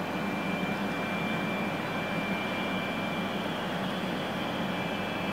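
Steady running noise inside a Yamagata Shinkansen Tsubasa car travelling at speed: an even rumble and rush with a thin high whine held above it.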